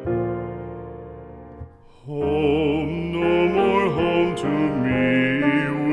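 Background music: a sustained piano chord fading away, then a singing voice with vibrato entering about two seconds in over keyboard accompaniment.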